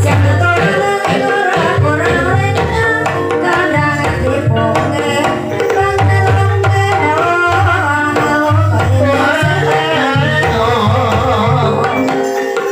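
Javanese ebeg accompaniment music: gamelan with kendang hand-drum strokes, held gong-like tones and a wavering sung or played melody over them.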